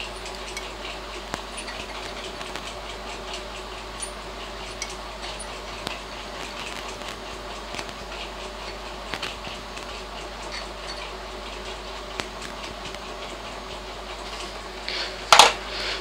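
Steady low hiss with faint scattered ticks while wires are soldered onto a microwave magnetron's filament terminals. About a second before the end there is a single loud knock.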